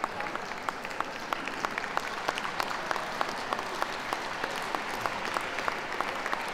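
Ringside crowd applauding steadily, with individual sharp hand claps standing out from the general clapping.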